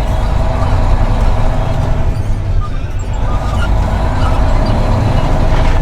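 Truck engine running steadily while driving, a loud continuous low drone.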